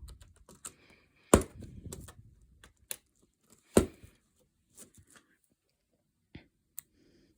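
Small plastic model-kit parts being handled on a work surface: two sharp taps, about a second and a half and about four seconds in, among scattered lighter clicks and a little scraping.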